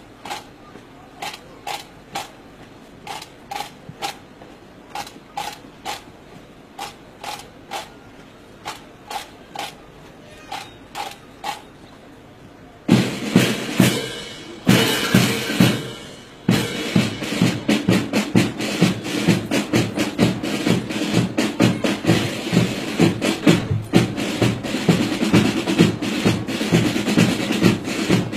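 Parade drumming: a drum keeps marching time at about two beats a second. About 13 seconds in, a loud drum section with snare rolls comes in and plays on in a steady rhythm.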